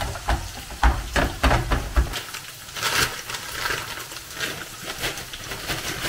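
Minced meat being browned from frozen in a non-stick frying pan, sizzling, while a slotted spatula knocks and scrapes through it in several quick strokes during the first two seconds. After that it settles to a steady sizzle.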